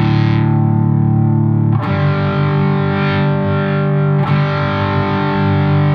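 Overdriven electric guitar, run through an effects pedal chain with a Carl Martin Contour & Boost filter, ringing sustained chords. A new chord is struck about two seconds in and again a little after four seconds.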